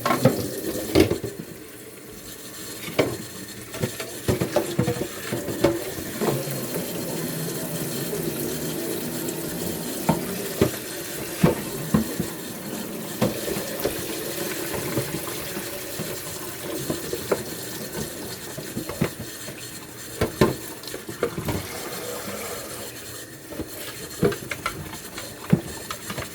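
Keurig's plastic water reservoir being washed at a sink: water runs and splashes steadily, with frequent knocks and clatters as the reservoir is handled and scrubbed.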